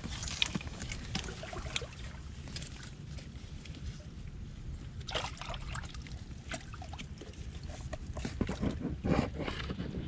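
Hands working in a flooded mud hole among mangrove roots: muddy water sloshing and splashing, with scattered clicks and knocks of sticks and roots, bunched around the middle and heaviest near the end.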